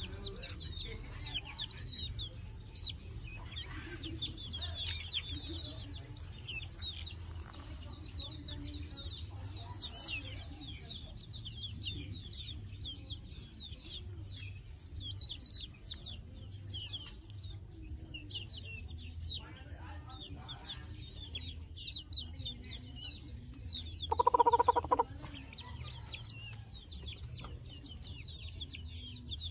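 Flock of young chickens peeping over and over in short high chirps. Near the end one louder, drawn-out chicken call lasts about a second.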